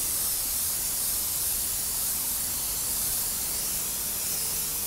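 Airbrush spraying paint: a steady, unbroken hiss of air and paint from the nozzle.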